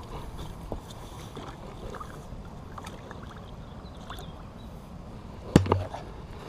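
Low, steady rumble of open-air boat ambience on a lake, with a single sharp thump about five and a half seconds in.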